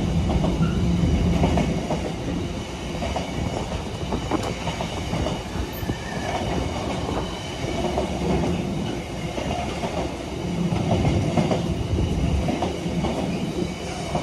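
Container flat wagons of a freight train rolling past, their wheels rumbling and clattering over the rail joints.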